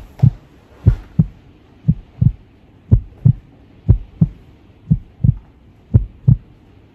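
Heartbeat sound effect: a steady low double thump, lub-dub, about once a second, seven beats in all.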